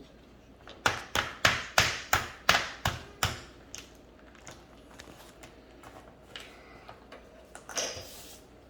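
A quick run of sharp taps and knocks, about three a second for a couple of seconds, then scattered faint clicks, as the hardened dig-out filler of a Treasure X toy tomb is broken apart by hand.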